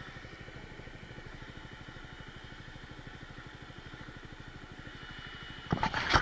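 Voge Trofeo 300 ACX motorcycle's single-cylinder engine idling with a steady, even pulse. Near the end, a short burst of knocks and scrapes close to the microphone as a gloved hand handles the helmet camera.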